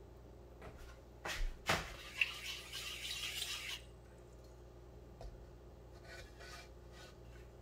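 Kitchen handling noises: two sharp knocks a little over a second in, followed by about two seconds of rough scraping noise, then quiet.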